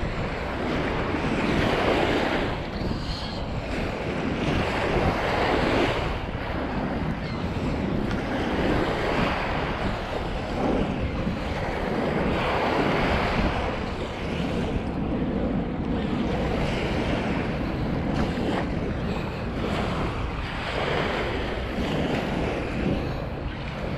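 Lake Michigan waves washing onto the beach in swells every few seconds, with wind buffeting the microphone.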